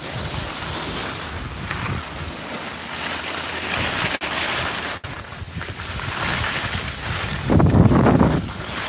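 Wind rushing over the microphone of a skier filming on the move, mixed with the hiss and scrape of skis on packed snow. A louder surge comes about three-quarters of the way in, and the sound drops out for an instant twice in the middle.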